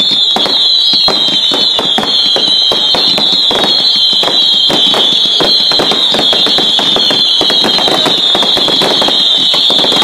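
Fireworks barrage going off: a dense run of crackles and pops under a continuous high whistling that keeps sliding down in pitch, from several whistling fireworks overlapping.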